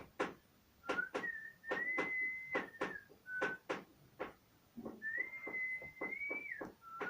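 Whistled notes held up to about a second and a half each, stepping and sliding a little in pitch, over a run of sharp, irregular clicks.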